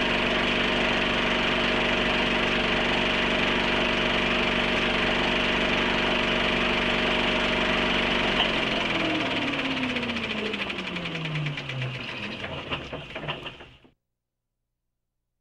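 Film projector running with a steady mechanical hum, then switched off: its motor winds down with a falling pitch and slowing clicks, stopping a little before the end.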